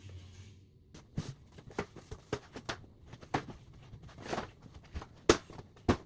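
Hands handling a plastic dinosaur action figure: a string of irregular sharp clicks and knocks, the two loudest near the end.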